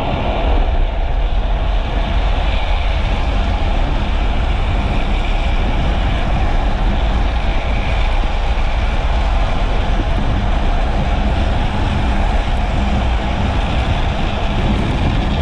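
Drift trike rolling and sliding downhill at about 50 km/h: a steady rumble of hard plastic-sleeved rear wheels on asphalt mixed with wind rushing over the camera.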